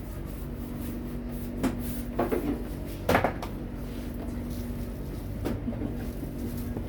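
Clatter of kitchen work: a few short knocks and clunks, the loudest about three seconds in, over a steady machine hum.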